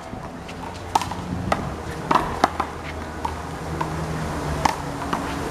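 One-wall handball rally: a rubber handball smacked by hand and hitting the wall and court, about eight sharp hits at an irregular pace, over a low steady hum.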